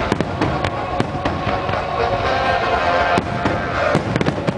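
Fireworks display: aerial shells bursting in many sharp bangs in quick, irregular succession. Music plays under the bangs.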